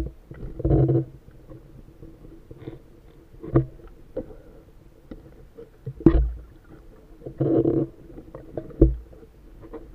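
Muffled underwater sound from a diver's camera: two short rushing bursts, one near the start and one about three quarters through, and three sharp knocks in between.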